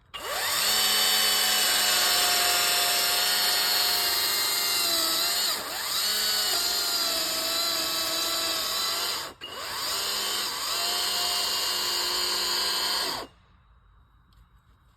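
Kress battery-powered chainsaw spinning up with a rising whine and cutting into a tree trunk, its steady electric-motor whine sagging in pitch as the chain bites into the wood. It stops for an instant about two-thirds of the way through, runs again, then cuts off suddenly.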